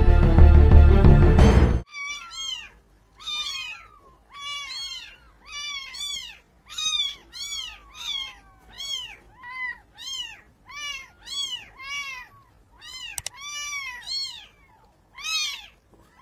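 Intro music that cuts off about two seconds in, then a young kitten mewing over and over, about one and a half short high calls a second, each rising and falling in pitch.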